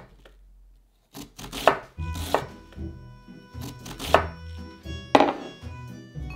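Chef's knife slicing through red cabbage onto a wooden cutting board: about five crisp cuts at irregular spacing. Background music comes in about two seconds in.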